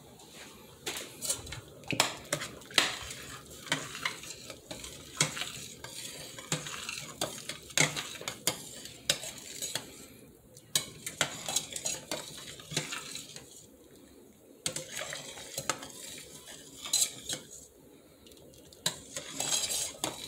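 A metal ladle stirring rice and bean broth in a stainless steel saucepan, clinking and scraping irregularly against the pot's sides and bottom, with a few short pauses.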